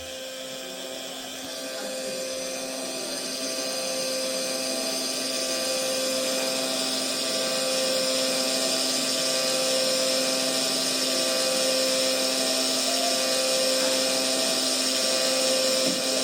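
A steady mechanical hum with several fixed tones over a hiss, growing gradually louder.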